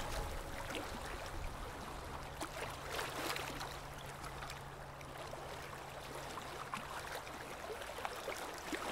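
Sea waves washing onto a shore: a soft, steady hiss that swells and fizzes now and then. A faint low held note from background music lies under it and drops out near the end.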